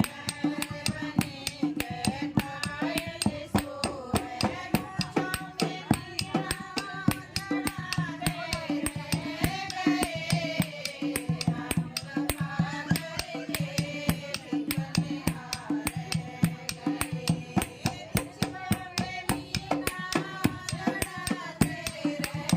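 Music: a voice singing a melody over fast, steady percussion.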